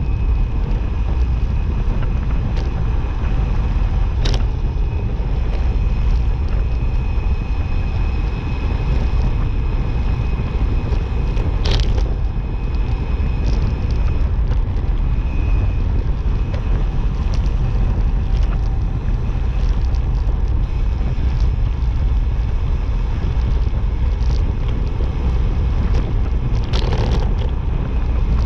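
Steady wind rushing over the microphone while moving along a road, with a faint thin whine for a few seconds in the middle and a few scattered sharp clicks.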